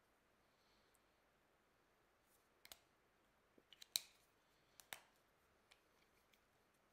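A few sharp plastic clicks from handling felt-tip marker pens, the cap being pulled and snapped, the loudest about four seconds in; otherwise near silence.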